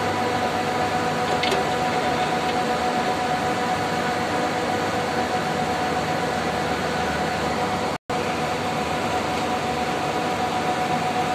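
Steady rush of running air-cooled chiller fan machinery, with a constant mid-pitched hum over the noise. The sound cuts out for an instant about eight seconds in.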